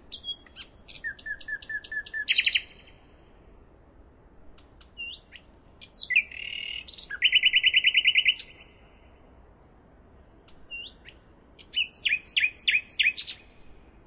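Nightingale singing three short phrases of whistles, rapidly repeated notes and fast trills, with a pause of about two seconds between phrases.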